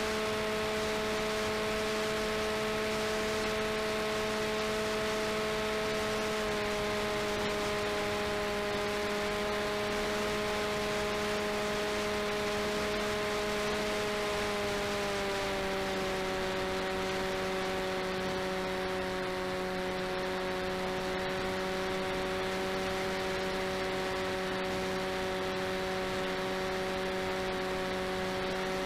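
Brushless outrunner motor (RCTimer 5010, 630KV, on a 4S LiPo) spinning the propeller of an FPV delta wing in flight, a steady whine heard from the onboard camera over wind hiss. The pitch steps down a little about six seconds in and again about halfway through as the motor slows.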